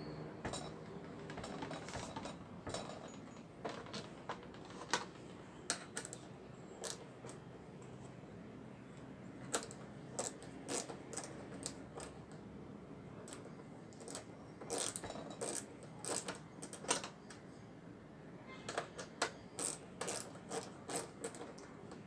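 Scattered metallic clicks and clinks of screws and hand tools being handled on a refrigerator's sheet-metal top as its handle hardware is unscrewed. Runs of quick clicks come about two-thirds of the way through and again near the end, where a ratcheting wrench is worked on a bolt.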